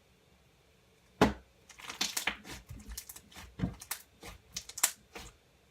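Crunchy slime being squeezed and pressed by hand, crackling in a run of sharp, irregular pops and clicks; the loudest pop comes about a second in.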